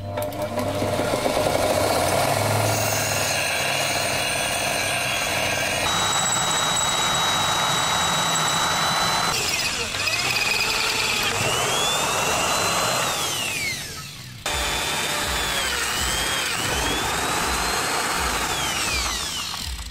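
Power tools working a steel bar. First an angle grinder grinds it down with a steady whine. After a cut, a hand-held electric drill bores holes, its whine rising and falling in pitch as the speed changes.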